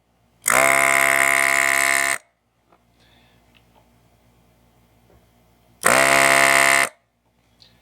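Desoldering gun's vacuum pump buzzing, switched on twice: once for about a second and a half, starting about half a second in, and again for about a second near the end, sucking melted solder out of a circuit board's joints. Faint small clicks come between the two runs.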